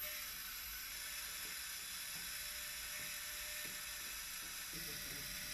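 Steady hiss of background recording noise (room tone), with a few faint small clicks.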